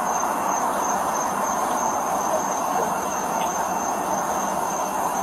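Steady roadside background noise of passing traffic, even and unchanging, with a thin high tone held steadily above it.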